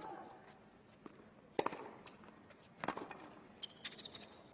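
Tennis rally on a hard court: sharp racket-on-ball strikes about every second and a quarter, as the ball is hit back and forth. A short high squeak comes near the end.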